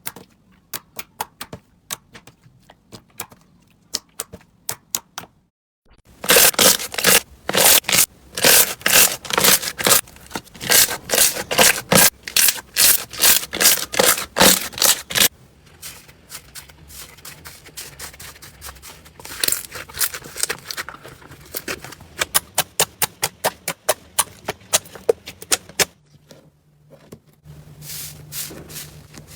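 Slime being squished, with sharp clicking and popping. The clicks are sparse at first, come in a loud, dense run of pops from about 6 to 15 seconds in, then turn softer again.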